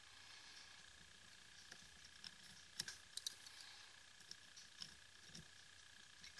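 Faint small clicks and ticks of metal tweezers against a tiny LED board in a flashlight's switch opening, with a quick cluster of sharper ticks about three seconds in, over a faint steady high-pitched hum.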